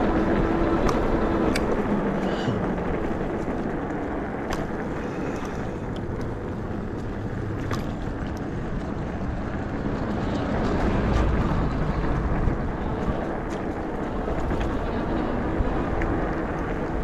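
Wind buffeting the microphone and fat tyres rolling on asphalt as a Nakto F6 electric fat bike rides along, with a few light clicks. The noise eases off in the middle as the bike slows, then picks up again.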